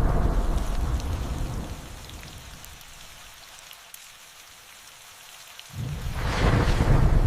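Rain and thunder: a loud low rumble of thunder dies away over the first two seconds, leaving steady rain, then about six seconds in a sudden thunderclap breaks and rumbles loudly on.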